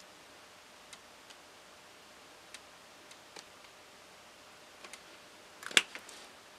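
Small plastic makeup containers being handled: a few faint scattered clicks and taps, then one sharp, louder click near the end.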